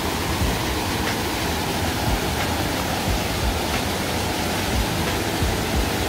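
Mountain stream rushing over boulders in a small cascade, a steady even rush of water.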